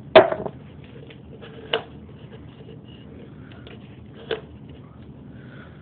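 Rim of a Tim Hortons paperboard coffee cup being pried and rolled up with teeth and fingers: a sharp crack just after the start, then faint crinkles and small ticks, with two more sharp clicks a little under 2 seconds in and a little past 4 seconds in.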